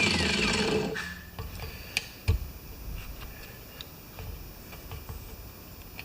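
A small power tool, widening a slot in a bolt, spins down and stops about a second in. Then come scattered light clicks and taps of small metal parts and tools being handled, the sharpest two about two seconds in.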